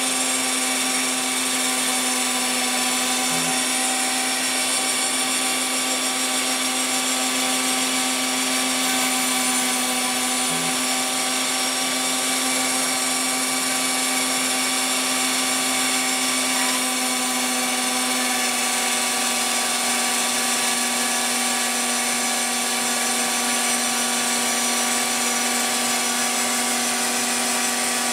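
Spindle of a Phlatprinter CNC mill running while its small end mill cuts a fibreglass sheet: a steady whine made of several constant tones over a cutting hiss.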